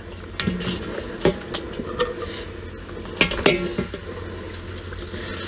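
Hard lobster and crab shells knocking and clicking against a metal pot as the shellfish are handled, with a handful of scattered knocks, the sharpest two about three seconds in, over a low steady hum.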